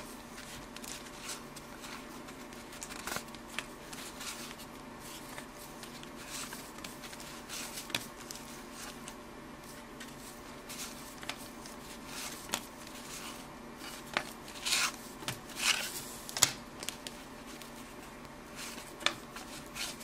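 Baseball trading cards being flipped through by hand one at a time: soft slides and clicks of card stock against card stock, with a few louder swishing flicks about fifteen seconds in, over a faint steady hum.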